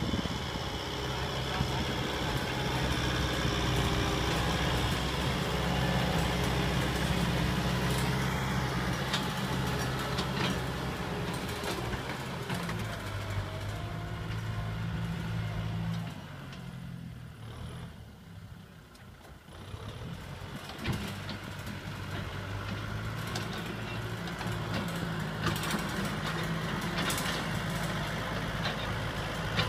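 Kubota M6040SU tractor's diesel engine running steadily under load as it pulls a disc plough through dry ground. The engine sound fades for a few seconds a little past halfway, then comes back.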